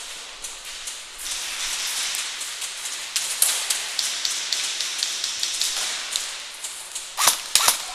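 Airsoft skirmish gunfire and BB impacts in a hard-walled indoor arena: a steady hiss with many irregular sharp clicks and taps, and two loud snaps near the end.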